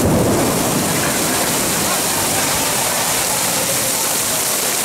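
Heavy rain pouring down in a loud, steady rush.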